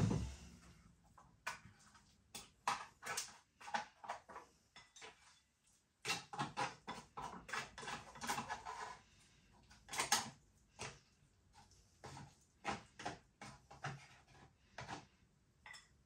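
Cutlery clinking and scraping on a plate of pizza fries in irregular, scattered strokes, with a single thump right at the start.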